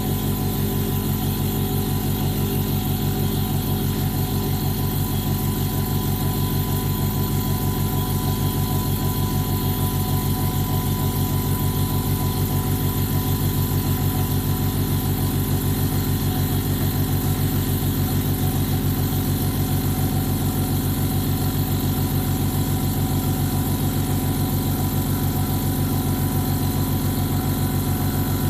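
Hyundai 750 W, 24-litre 'silent' air compressor running steadily as it pumps its tank up towards its cut-out pressure of about 7 bar. It makes an even, fairly quiet hum with a fine, fast pulsing.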